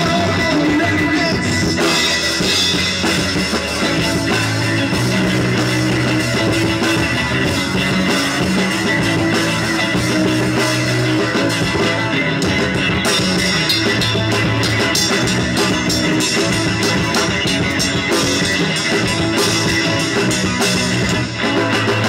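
Live rock band playing loud: electric guitars, bass guitar and a drum kit through stage speakers. The volume briefly drops near the end.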